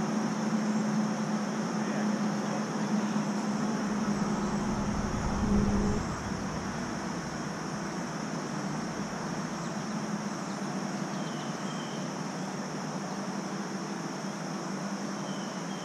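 Steady outdoor background: a low, even mechanical hum over a steady hiss. A deeper rumble swells and cuts off about six seconds in.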